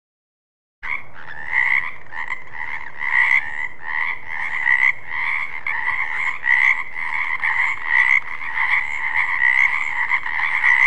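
Frogs croaking in a dense chorus of repeated calls, starting suddenly about a second in.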